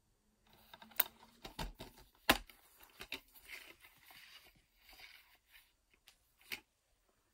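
Plastic DVD case being handled and opened: a few sharp plastic clicks and knocks, the loudest a little over two seconds in, with soft rustling and scraping between them.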